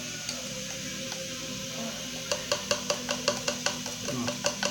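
A spoon clinking quickly against a container, about a dozen light rhythmic clinks at roughly five a second, starting a little past halfway, as sugar is put in.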